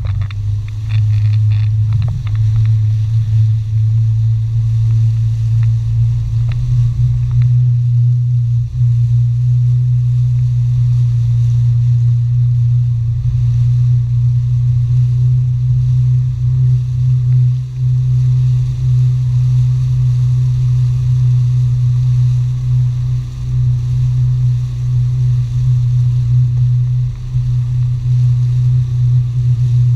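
Jet ski engine running steadily, a constant low drone that holds nearly the same pitch throughout.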